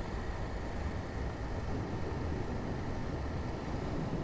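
Motorcycle riding at a steady cruise: an even, steady low rumble of engine and wind noise with no change in speed.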